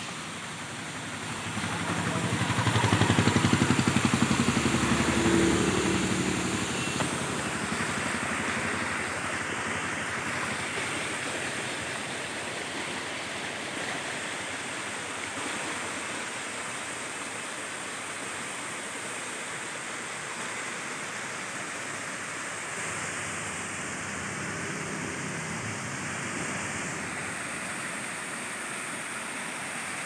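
Steady rush of a hillside waterfall and its roadside stream of falling water. A vehicle engine passes on the road, swelling to loudest about three to five seconds in and fading out by about seven seconds.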